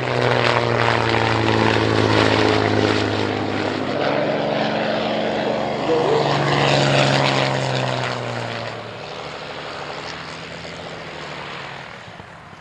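Hawker Hind biplane's Rolls-Royce Kestrel V12 engine flying past low, a steady drone dropping in pitch as it goes by, with a second pass rising and falling in pitch about six seconds in. The engine sound then fades to a quieter drone over the last few seconds.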